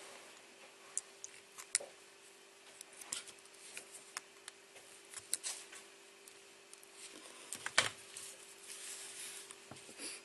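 Scattered light clicks and ticks of pliers and a small electrolytic capacitor's wire leads being gripped and bent, with two sharper clicks, one about two seconds in and one later on. A faint steady hum runs underneath.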